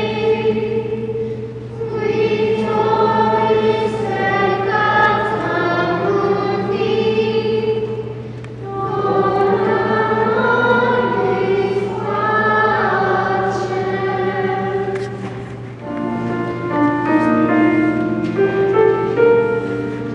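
A children's choir singing a sung prayer in long sustained phrases, with short breaks about 2, 8 and 16 seconds in. A steady low hum runs underneath.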